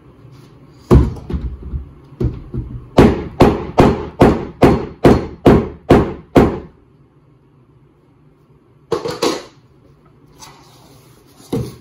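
Hammer blows on a wooden foot rail: a sharp strike about a second in, then a run of about nine quick, even blows, and a few more near the end.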